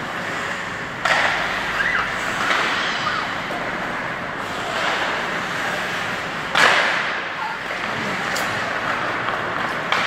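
Ice hockey play in a rink: a steady wash of skates and play noise, broken by two sharp cracks of hockey sticks or puck, one about a second in and a louder one about two-thirds of the way through.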